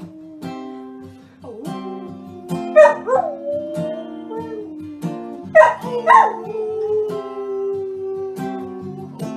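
Samoyed howling along to a strummed acoustic guitar: two loud howls about 3 and 6 seconds in, each sweeping in pitch and then drawn out into a long falling note, over a steady strumming rhythm.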